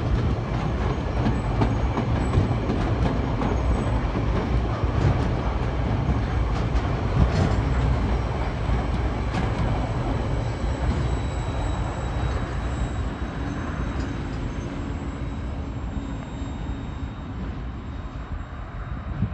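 Empty log wagons of a freight train rolling past, their wheels rumbling and clattering on the rails with a faint high squeal. The noise slowly fades toward the end as the last wagon moves away.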